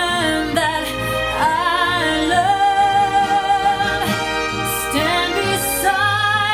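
Music with a singer holding long, wavering notes over instrumental accompaniment.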